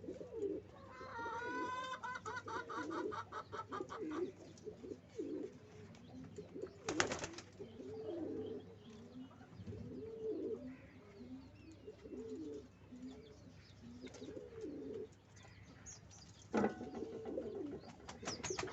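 Domestic pigeons cooing over and over in low, rolling calls. A higher, rapidly pulsing call comes in the first few seconds, and two sharp knocks stand out, one about a third of the way in and one near the end.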